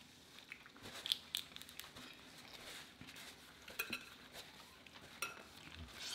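Faint, scattered clicks and clinks as fried prawns are pulled by hand from a glass bowl, shells knocking against the glass.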